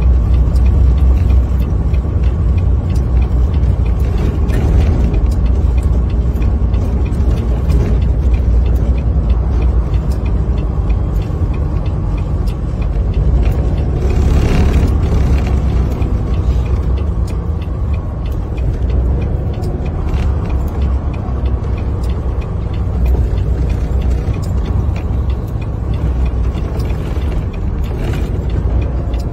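Semi truck running on tire chains over a snowy road, heard from inside the cab: a steady low engine and road rumble with faint rapid ticking throughout. A brief louder rush of noise comes about halfway through.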